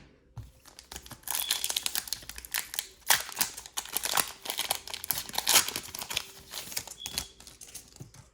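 Foil Pokémon booster pack wrapper crinkling as it is handled and torn open, a dense run of crackles starting about a second in.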